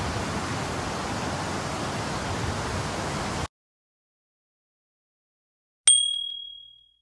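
A steady hiss of noise that cuts off suddenly about halfway through, then after a silence a single high, clear ding that rings and fades over about a second.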